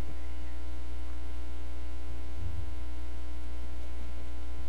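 Steady electrical mains hum: a constant low buzz with faint overtones, unchanging throughout.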